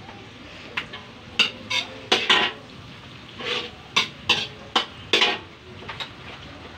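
Onions, garlic and lemongrass sizzling in hot oil in a wok, with a metal utensil clanking and scraping against the pan about a dozen times as the mix is stir-fried.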